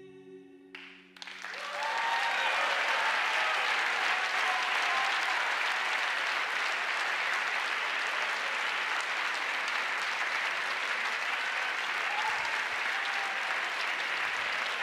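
The band's last held chord dies away in the first second or so, then a theatre audience breaks into steady applause that carries on throughout, with a few voices calling out over it.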